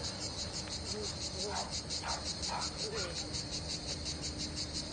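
A chorus of insects, a high, rapidly pulsing shrill that holds steady.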